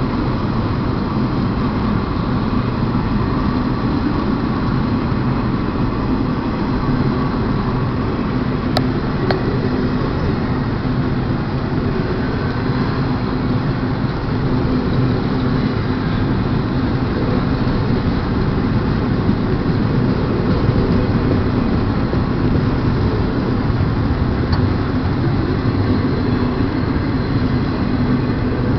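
Freight train of trailer-carrying flatcars rolling past on the rails, a steady, unbroken running noise of wheels and cars.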